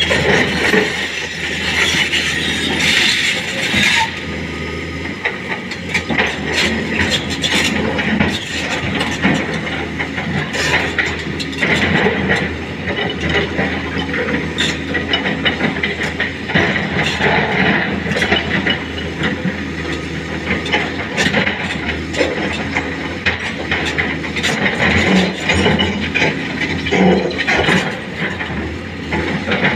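Crawler excavator working: its diesel engine running steadily under a dense racket of metallic clanks and rattles from the machine.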